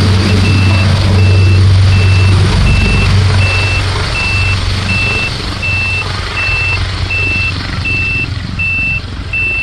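Leonardo AW139 twin-turbine helicopter climbing away after takeoff, its rotor and turbine noise a loud low hum with a rushing haze that eases after about three seconds as it moves off. Over it, a high electronic beep repeats evenly, a little under two beeps a second, like a vehicle's reversing alarm.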